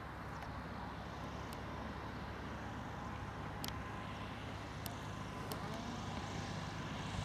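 Motor glider's propeller engine at low power on a landing approach, a faint steady drone that grows slowly louder as the aircraft comes closer, with a few light clicks.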